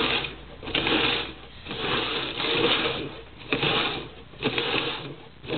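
A Chihuahua-mix dog sniffing and nosing at upside-down red plastic cups on a wooden floor, with the cups being shifted and bumped, in about four short noisy bursts.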